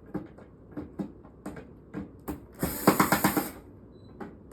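A handheld power driver runs in one short burst about two and a half seconds in, after several light clicks and knocks of parts being handled.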